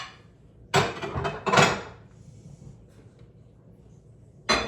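Plates clattering as they are set and stacked in a kitchen cabinet, a few sharp knocks close together about a second in, then one more sharp knock near the end.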